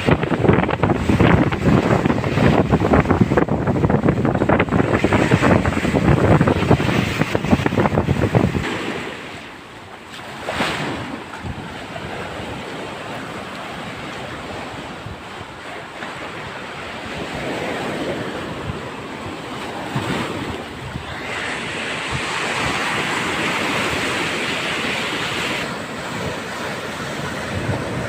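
Heavy surf of a stormy sea with strong wind buffeting the microphone; the wind rumble is loud for the first third, then drops, leaving the waves breaking and rushing, with one wave surging up near the end.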